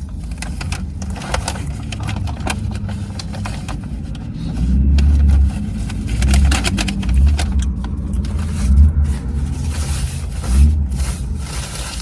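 Close-up chewing and mouth noises of a person eating a bite of fish sandwich and marinara-dipped mozzarella stick: many small wet clicks, over a steady low hum, with heavy low thumps starting about four and a half seconds in.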